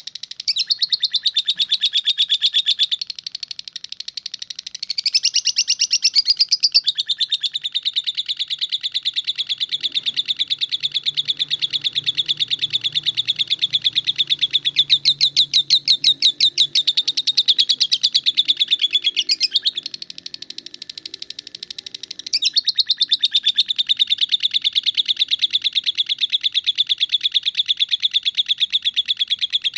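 Lovebird giving its 'ngetik' song: a fast, unbroken chattering trill of rapid clicking notes that sounds like typing. It eases to a quieter stretch twice, a few seconds in and about two-thirds through.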